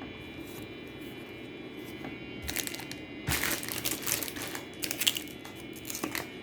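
Thin plastic crinkling and rustling in bursts as trading cards are handled and slipped into sleeves, starting about two and a half seconds in and densest in the middle.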